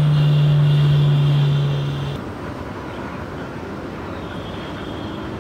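Steady drone of an electric appliance left running on the mains. A loud hum and a high whine stop abruptly about two seconds in, leaving a quieter steady rush.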